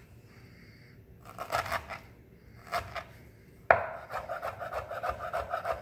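Chef's knife chopping pineapple on a wooden cutting board: a few separate cuts, then from about two-thirds of the way in a quick, even run of chops, about five a second, the blade knocking on the board.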